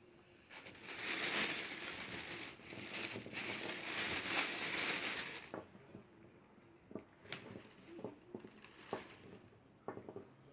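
Thin plastic sandwich bag crinkling and rustling as pieces of peeled taro are put into it: a dense crinkle for about five seconds, then scattered lighter crackles and taps.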